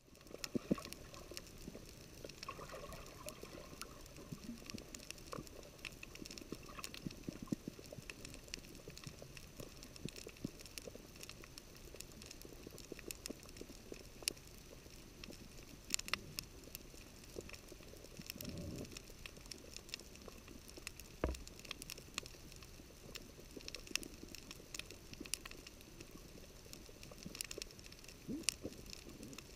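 Underwater coral reef ambience picked up by a camera sitting on the reef: a steady hiss with scattered sharp clicks and crackles, and one low thud about two-thirds of the way through.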